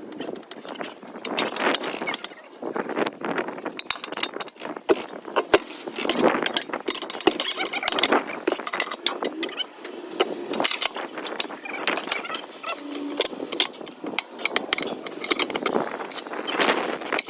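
Irregular metallic clanks, clinks and knocks of hand tools working on a tractor tire and rim.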